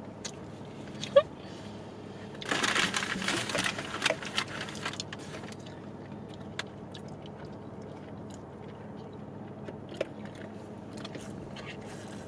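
People eating fast food: soft chewing and small clicks of a plastic fork on food, over a low steady hum inside a car. A couple of seconds in there is a scratchy rustle lasting about two seconds.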